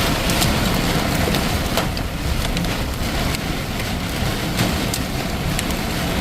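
Very heavy rain pouring down in a steady hiss, with many sharp scattered ticks of hailstones and large drops striking hard surfaces.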